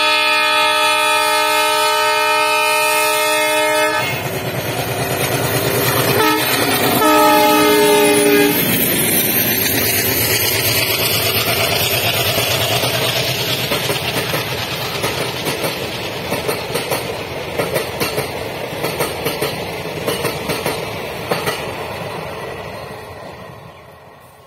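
WDM-3D ALCo diesel locomotive sounds its multi-tone horn in one long blast for about four seconds, then gives a few short blasts, while its diesel engine runs hard, accelerating. It then passes, and the passenger coaches roll by with a rhythmic clickety-clack of wheels over rail joints, fading away near the end.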